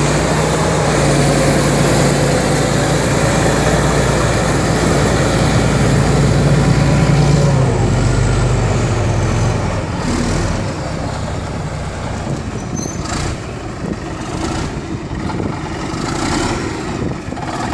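Caterpillar D8K crawler bulldozer's diesel engine running steadily as the dozer drives. Its pitch drops about nine to ten seconds in, after which the engine is quieter and the steel tracks clank.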